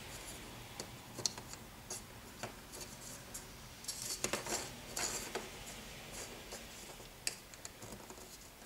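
Plastic model-kit rings clicking and scraping against each other as one rim is worked around into the groove and notches of another. Scattered small clicks, with a few louder scrapes about halfway through.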